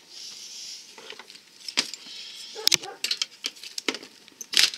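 Rustling and a scatter of sharp clicks and knocks from electrical cords and a plug being handled on the floor.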